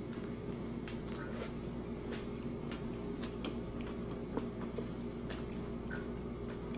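Room tone: a steady low hum with faint, irregular small clicks scattered through it.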